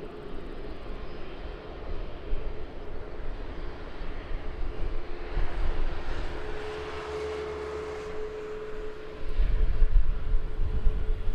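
Jet airliner passing, its engine noise swelling about halfway through with a steady droning tone over the rush. Near the end a loud, gusty low rumble of wind buffets the microphone.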